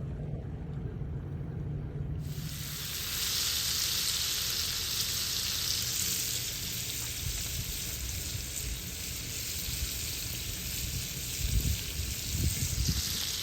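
Battered bangamary fish frying in hot oil: a steady sizzle that starts suddenly about two seconds in. A few low bumps near the end.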